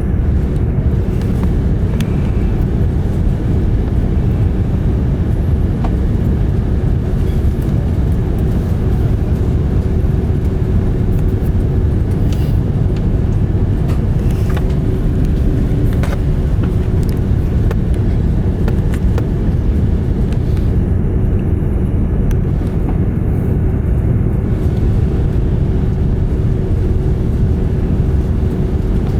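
Steady cabin noise of an Airbus A330 airliner in flight on approach: a deep, even rumble of engines and airflow with a steady hum, and a few faint clicks.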